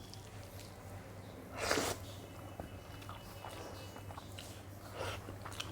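A person eating close to the microphone: quiet chewing and mouth sounds, with one louder breathy burst a little under two seconds in and a smaller one near the end.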